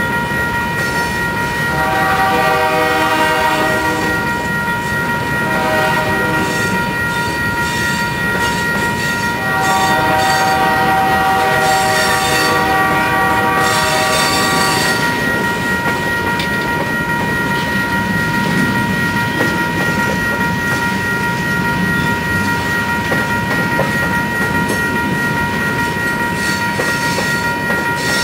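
Freight cars rolling through a grade crossing, wheels clacking over the rail joints, while the crossing bells ring steadily. Over it a locomotive's multi-chime horn gives a horn salute: a blast about two seconds in, a short one around six seconds, and a long blast of about five seconds near the middle.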